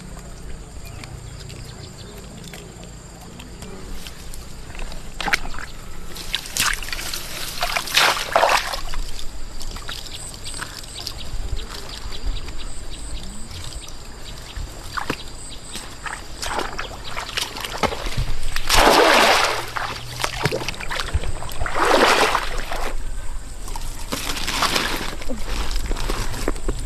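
Water sloshing and splashing, with several louder splashes about a third of the way in and again in the second half, over a trickling background.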